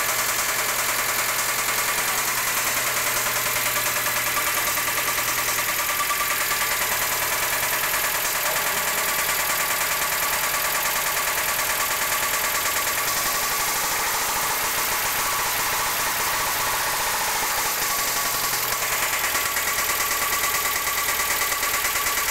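1992 Mazda Miata's 1.6-litre four-cylinder engine running steadily with a loud, rapid ticking clatter. The noise came on abruptly and is unchanged after a rebuilt head with new cams and lifters, so the lifters are not its cause.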